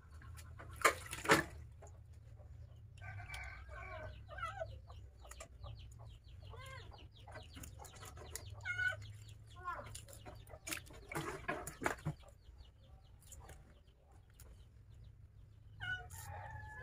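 Chickens clucking, short pitched calls scattered throughout. Loud clattering knocks about a second in and again about eleven to twelve seconds in are the loudest sounds, over a steady low hum.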